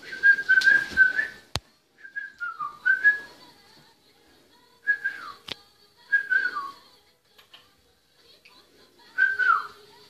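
Cockatiel whistling its song in short phrases of clear whistles, several sliding down in pitch at the end, with pauses between them. Two sharp clicks fall between phrases.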